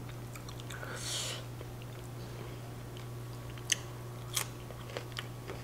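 Raw radish slice bitten into with two crisp crunches about four seconds in, over a steady low hum.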